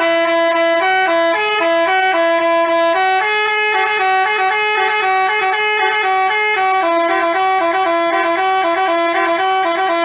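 Telolet "basuri" musical bus horn playing a tune in quick stepped notes, several horn tones sounding together, before stopping abruptly.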